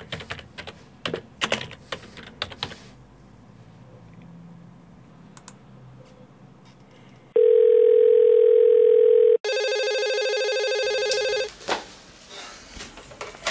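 Computer keyboard typing in quick key clicks for the first few seconds. About seven seconds in, a steady telephone dial tone holds for two seconds, then gives way straight away to a harsher, buzzing telephone ring that lasts about two seconds and cuts off.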